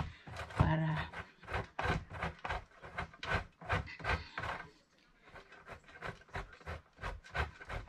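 A block of sharp yellow cheese rubbed up and down a handheld metal grater: quick rasping strokes, about four a second, with a short pause about five seconds in.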